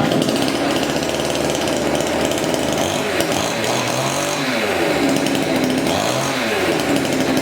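Chainsaw cutting a coconut palm, starting abruptly and running loud, its engine note sagging and picking up again a few times in the middle.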